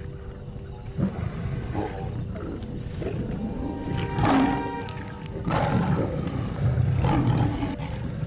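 Lions growling and snarling in a series of short outbursts as they squabble over a carcass while feeding, over background music. The loudest snarl comes a little after four seconds in.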